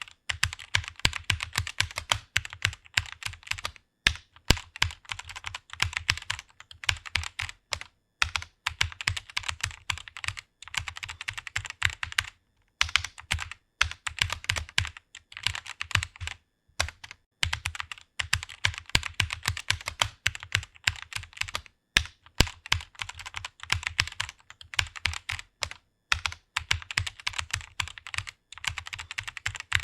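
Fast typing on a computer keyboard, rapid key clicks in runs broken by brief pauses between words and phrases.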